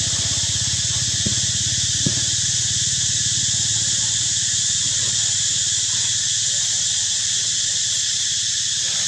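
A steady, high-pitched insect drone, with two short clicks about one and two seconds in.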